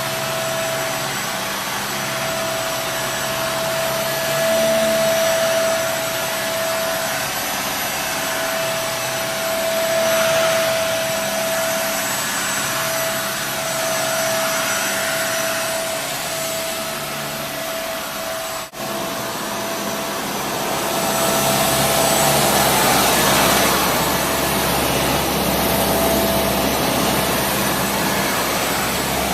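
Kenmore Intuition multi-cyclonic bagless upright vacuum cleaner, a Panasonic-built direct-drive model, running: a steady motor whine over rushing air that swells louder several times. The sound drops out for an instant about two-thirds of the way through.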